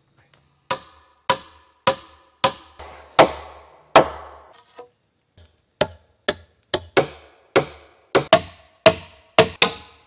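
Hammer driving nails into a log wall: a run of about six ringing strikes a little over half a second apart, a short pause, then a quicker run of about ten.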